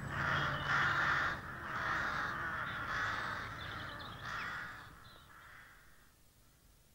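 Crow cawing, about six harsh calls at intervals of roughly half a second to a second, growing fainter and dying away about five seconds in.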